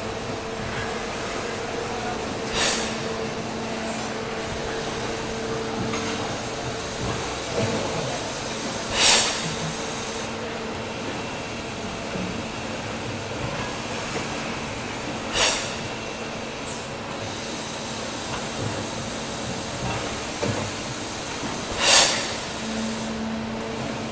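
Electric blow moulding machine running with a steady hum. Four short, loud hisses of compressed air come about every six and a half seconds, one on each moulding cycle.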